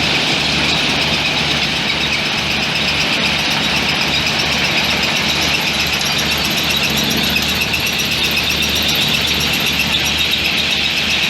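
Machinery running steadily, with a high-pitched squeal over a low hum.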